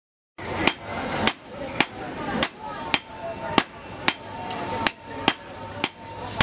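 Blacksmiths' hammers striking steel blades on an anvil: sharp metal-on-metal blows, about two a second, each with a short ring. It starts about half a second in.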